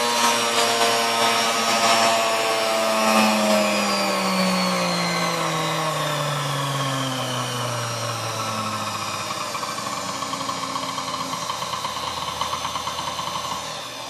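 Restored Sunbeam Mixmaster Model 1 stand mixer's motor running on test, its whine dropping steadily in pitch as it slows over several seconds, then holding at a lower, steadier speed before it cuts off at the end.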